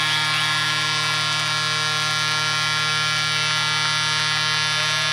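Ice-hockey arena goal horn blowing one long steady note, sounding a home-team goal.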